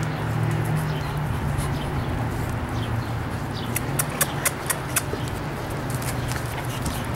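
Bullmastiff puppies' claws clicking and scratching on concrete as they move about, with a run of sharp ticks about four seconds in, over a steady low hum.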